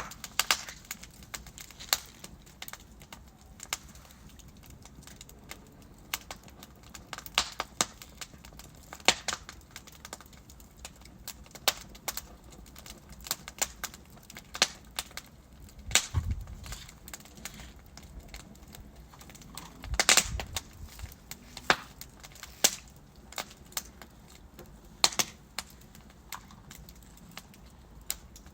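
Wood fire in a fireplace crackling: irregular sharp pops and snaps from burning logs over a low hiss, with a couple of louder snaps midway.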